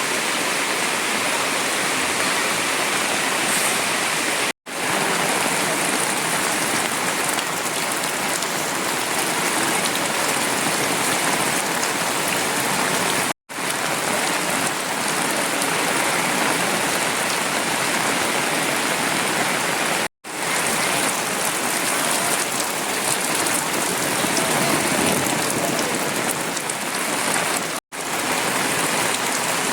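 Heavy rain falling steadily, a dense, even hiss, with the sound cutting out for an instant four times.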